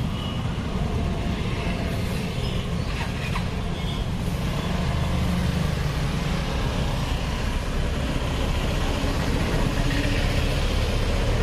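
Road traffic: a steady low rumble of vehicle engines running close by, growing slightly louder near the end.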